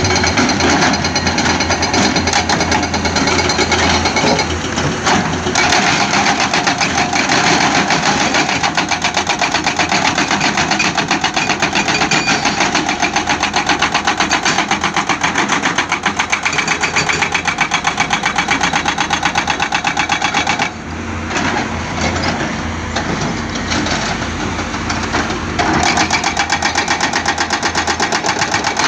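Hydraulic breaker on a Cat 320D2 excavator hammering rock in rapid, steady blows over the running excavator engine. The hammering stops for a few seconds about three-quarters of the way through while the engine keeps running, then starts again.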